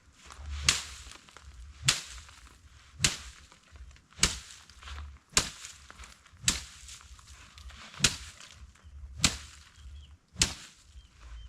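Nine sharp strikes at a steady pace of about one a second, a tool swung hard again and again, with faint rustling between the blows.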